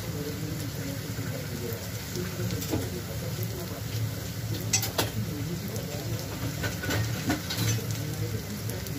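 Bitter gourd (karela) sabzi sizzling in oil in a pan, with a few sharp clicks and scrapes around the middle, over a low steady hum.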